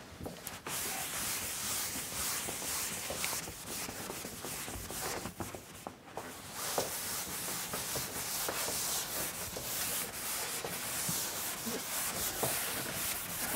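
An eraser wiping chalk off a blackboard in repeated rubbing strokes, with a short break about six seconds in.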